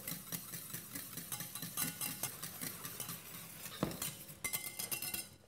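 Wire whisk ticking and scraping against the sides of a stainless steel saucepan as vinaigrette is poured in and whisked into reduced stock to emulsify it. There is one sharper knock of the whisk against the pan about four seconds in.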